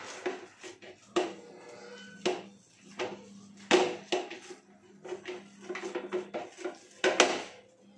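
A hand mixing wheat-flour dough in a bowl, with irregular clinks and knocks against the bowl; the sharpest knocks come about a second in, near the middle and near the end.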